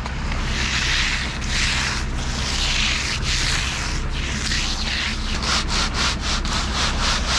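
Wet concrete scraping and sliding as it is discharged and spread with rakes, in repeated surges about once a second that quicken near the end. Under it runs the steady low hum of the concrete truck's engine.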